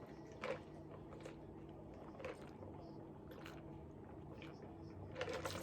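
Quiet room tone with a faint steady hum and a few soft, scattered clicks.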